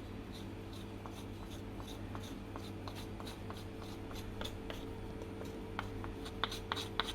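A spoon scraping and tapping lightly against a bowl while spice powder is added to a chicken marinade. The strokes come about two or three a second and get louder near the end, over a steady low hum.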